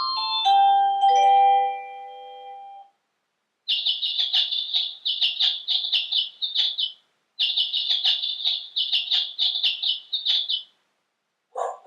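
Electronic shop visitor-entry chime playing its built-in sounds: a descending bell-like melody fades out in the first three seconds, then after a short gap a bird-chirp sound plays twice, each a run of rapid high chirps lasting about three seconds.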